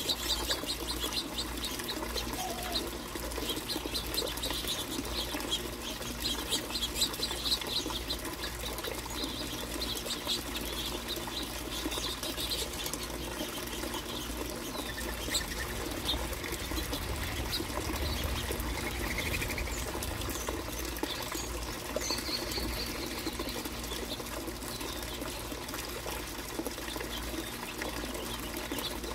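A flock of finches chirping and twittering, with wing flutters, busiest in the first half and thinning out later, over a steady low background rush.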